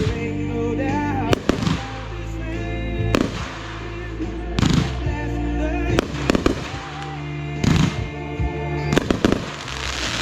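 Consumer fireworks going off in a backyard show, with sharp bangs every second or two, some followed by a brief crackle, over music playing in the background.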